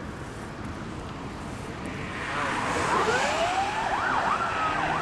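Wind rushing on the microphone, then about two seconds in an emergency vehicle's siren comes in, rising and then wailing quickly up and down.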